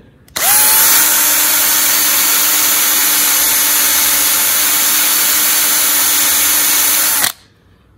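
Handheld electric drill spinning up and drilling steadily through a rivet in an aluminium part for about seven seconds, then stopping abruptly. This is drilling out a bad rivet, the bit cutting into the rivet head and throwing aluminium chips.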